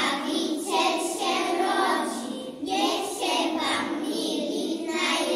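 A group of young preschool children singing a Christmas song together.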